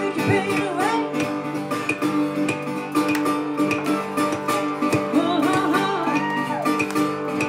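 Live blues on a metal-bodied resonator guitar, picked fingerstyle in a steady rhythm, with a woman singing over it at times.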